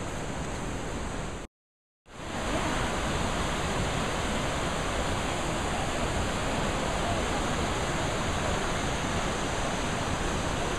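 Steady rush of a fast mountain river over rocks. It breaks off for about half a second a second and a half in, then comes back slightly louder.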